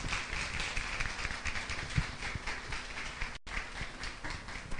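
Audience applauding, a dense patter of hand claps that thins out near the end.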